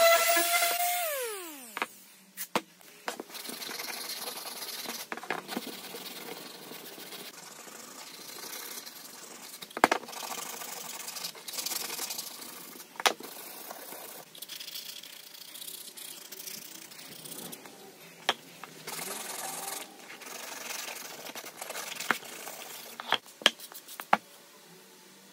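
Hitachi random orbital sander running, then switched off about a second in and winding down with a falling whine. After that comes hand sanding with sandpaper and a sanding sponge: scratchy rubbing in stretches of strokes, with several sharp knocks.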